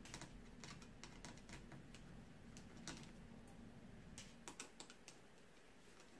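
Faint, irregular small clicks and ticks of a precision screwdriver working small screws out of a laptop's touchpad bracket, with a quick cluster of clicks about four and a half seconds in.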